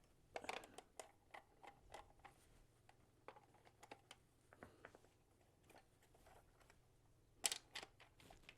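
Small plastic clicks and knocks as the two halves of a Black & Decker BD170 orbital sander's plastic housing are worked apart by hand, with a louder clack near the end as the housing comes open.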